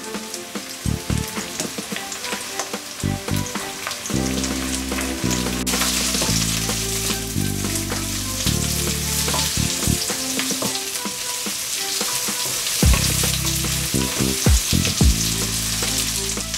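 Sliced onions and carrots sizzling in hot oil in an enamel wok, stirred and scraped with a wooden spatula. The spatula knocks against the pan now and then, a few louder knocks coming in the last few seconds.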